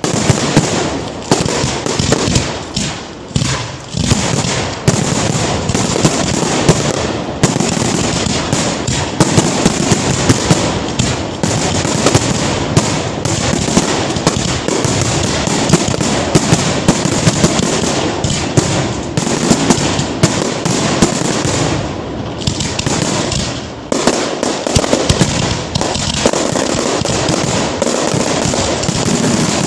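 Fireworks display: aerial shells bursting in rapid, near-continuous succession, a dense barrage of bangs and pops with only brief lulls.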